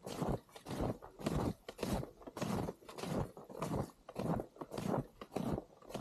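Footsteps crunching in fresh snow, in a steady walking rhythm of about two steps a second.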